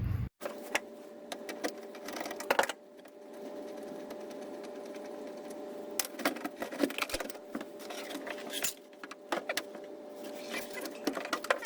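Screws and plastic dash trim being taken out: scattered clicks, knocks and rattles over a steady small-motor hum.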